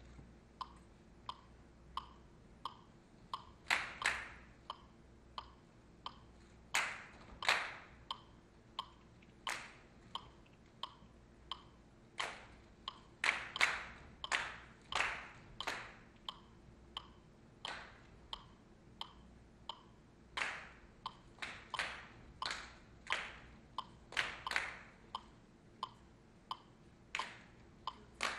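Sharp hand claps in irregular groups over a steady ticking beat of about one and a half ticks a second, with each tick a short ping.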